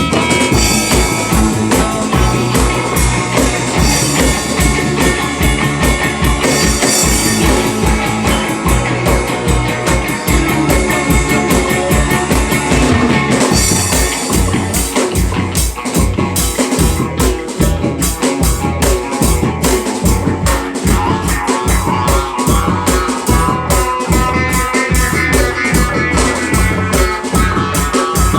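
A rock band playing: drum kit keeping a steady beat under guitars, the arrangement shifting about halfway through.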